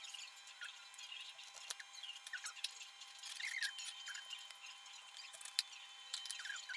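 Faint, scattered high-pitched chirps and squeaks, many short rising and falling calls, over a faint steady hum.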